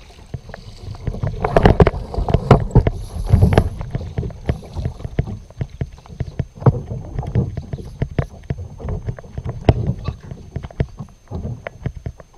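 Water slapping and knocking against a kayak hull as it rides the chop: a rapid, irregular series of knocks and splashes over a low rumble, thickest about two seconds in.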